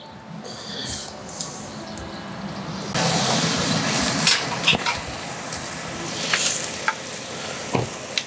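Lamb mince on metal skewers sizzling over hot charcoal on a Weber kettle grill, with scattered sharp crackles and pops. The sizzle gets louder about three seconds in.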